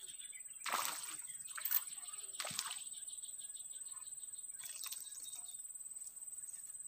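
A hooked tilapia splashing and thrashing at the water's surface as it is struck and pulled out, in several short bursts. Between them a spinning reel is cranked, ticking rapidly for a second or so.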